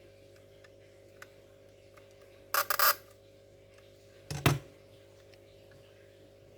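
Two short clusters of sharp clicks and clatter from small hard parts being handled during laptop disassembly, about two and a half seconds in and again near four and a half seconds, the second with a dull knock.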